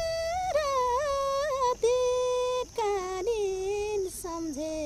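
A young woman singing a slow Nepali song with no instrument heard: long held notes with small ornamented turns, the phrase stepping down in pitch toward the end.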